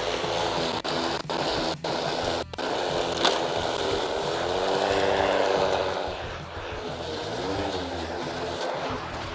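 Ryobi 20-inch brushless battery lawn mower running as it cuts grass, its motor whir rising and then falling in pitch in the middle as the load changes.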